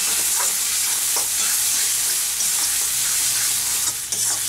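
Flat-bean (shim) paste sizzling in hot oil in an aluminium wok while a metal spatula stirs and scrapes it: a steady hiss with soft scraping strokes, the moisture in the paste cooking off.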